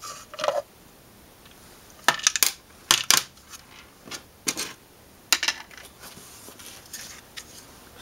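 Hard plastic car side-mirror parts being handled and lifted apart: a string of short clicks and knocks, loudest in two quick clusters about two and three seconds in.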